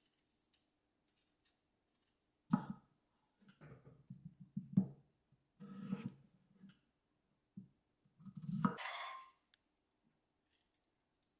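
Kitchen knife slicing a raw potato on a wooden cutting board: a run of irregular cuts and knocks starting about two and a half seconds in. The loudest comes near the end and trails into a brief hiss.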